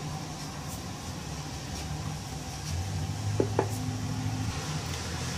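Wooden rolling pin rolling dough thin on a wooden board, a low rumble that grows stronger a little under three seconds in, with two light clicks about three and a half seconds in.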